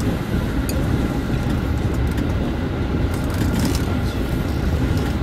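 Steady low rumble of an electric local train running along the track, heard from on board, with faint clicks and a thin steady whine above it.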